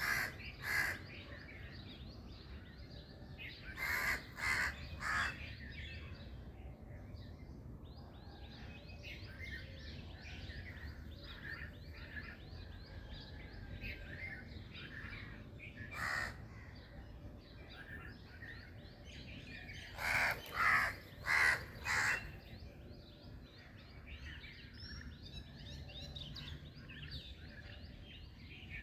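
Morning birdsong: a loud bird calling in short runs of three or four calls, a few seconds in, once midway and again about two-thirds through. Underneath runs a steady chorus of smaller birds chirping and a low background rumble.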